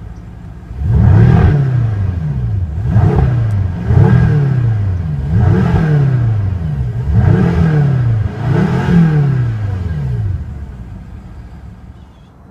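2015 BMW M6 Gran Coupe's 4.4-litre twin-turbo V8 revved in park with six quick blips, each rising and falling in pitch, about one every second and a half. It settles back toward idle near the end.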